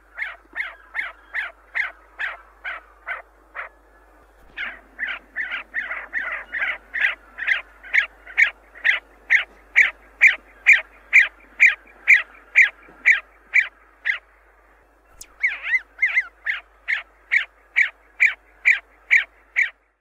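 A bird calling over and over in short, sharp notes, about two to three a second, with two brief pauses.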